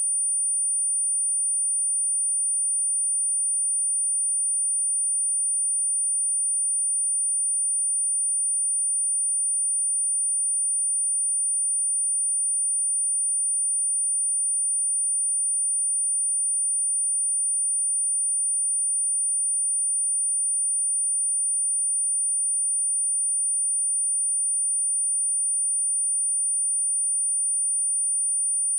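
A steady, unbroken 9336 Hz sine wave test tone, a single high-pitched pure tone at constant loudness.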